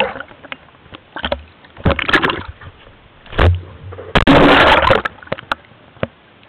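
Water splashing and sloshing in irregular bursts around a camera dipping in and out of the water surface, the longest and loudest splash about four seconds in. A few low thumps and short knocks come in between.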